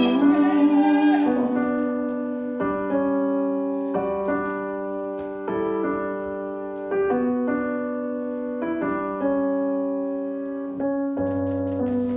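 Background music: slow piano chords, a new chord struck about every second and a half and left to ring, with a low bass note joining near the end.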